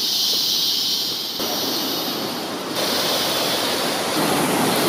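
Steady rush of river water running over rocks in rapids, a constant noise with a high hiss on top that shifts slightly between shots.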